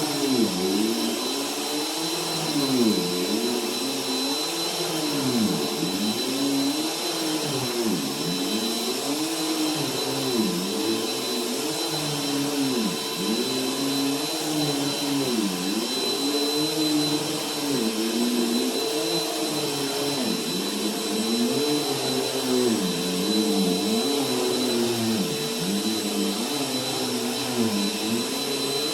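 Bissell vacuum cleaner running steadily as it is pushed back and forth over carpet, its pitch dipping and rising again with each stroke, about once every two seconds.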